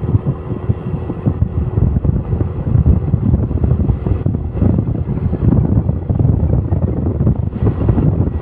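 Wind buffeting the microphone over the low rumble of road traffic, with a faint steady engine hum underneath.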